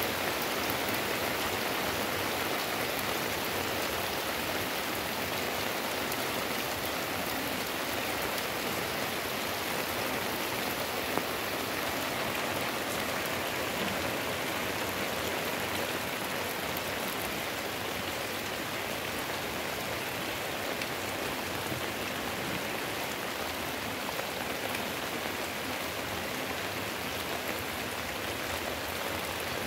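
Heavy rain pouring steadily on roofs and leaves, with runoff streaming off the roof edge. One brief sharp tap stands out about eleven seconds in.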